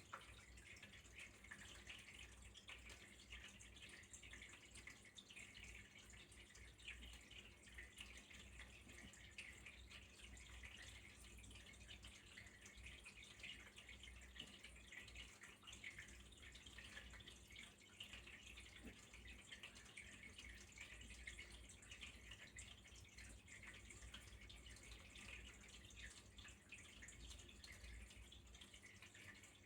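Faint, steady trickle of flowing water, a continuous patter of many small drips, over a low steady hum.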